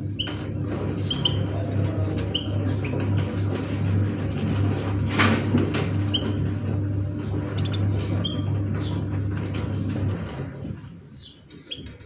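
Scattered short chirps of small caged songbirds, a few notes at a time, over a steady low mechanical hum that dies away about ten and a half seconds in.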